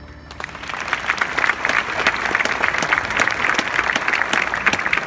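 Audience in a large arena applauding, the clapping building up over the first second and then holding steady.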